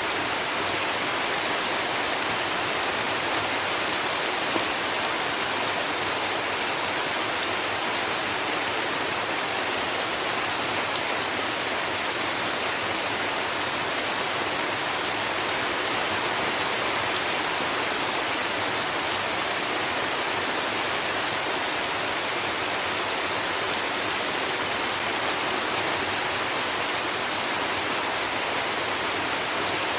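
Heavy rain falling steadily: a dense, even hiss of drops with no thunder.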